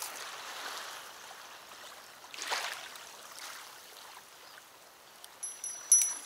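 Soft wash of river water along the bank, then near the end a fishing rod's bite indicator starts ringing as a fish takes the bait, getting louder right at the close.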